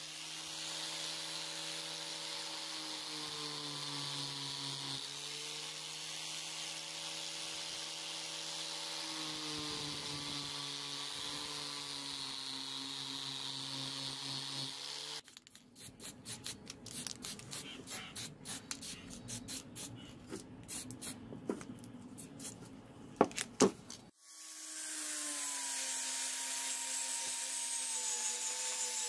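Electric power tool with a felt buffing wheel running steadily as it polishes a metal sword guard, its pitch dipping now and then. About fifteen seconds in it gives way to irregular scraping and clicking for several seconds. Near the end an angle grinder runs on the steel blade.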